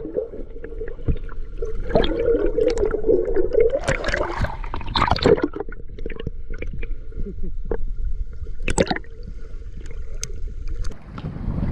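Irregular knocks and clicks aboard a small boat with water sloshing, as a caught flathead is handled, and a louder single knock near the end.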